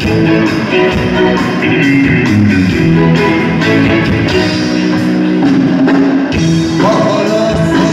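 Live rock band playing an instrumental passage: guitar over keyboard and drum kit, loud and continuous, moving to new notes near the end.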